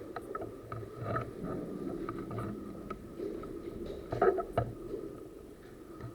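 Close rustling and handling noise, uneven and scuffing, with scattered small clicks and one louder knock about four seconds in.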